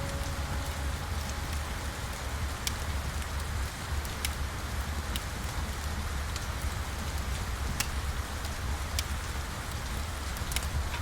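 Steady rain ambience with a deep low rumble, dotted with sharp, irregular crackles of a fire. A piano note fades away in the first second.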